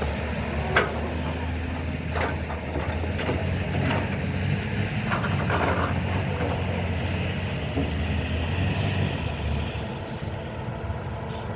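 Excavator's diesel engine running steadily, with several sharp metallic clanks scattered through it; the low engine drone drops away near the end.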